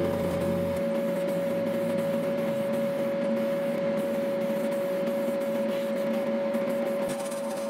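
Gravity-feed airbrush spraying paint onto a plastic model part, a steady hiss of air, over a steady motor hum.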